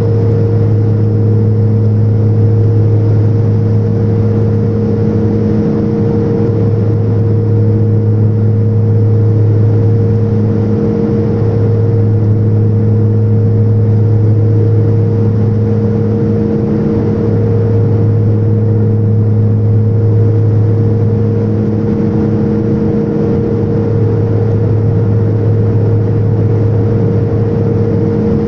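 Turboprop airliner's engines and propellers heard from inside the passenger cabin in flight: a loud, steady, low droning hum that swells and fades in a slow beat about every six seconds.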